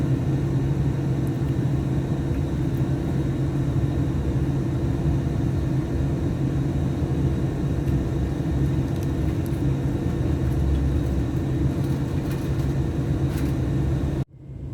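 Class 730 electric multiple unit running, heard on board: a steady rumble with a low hum. It cuts off suddenly near the end.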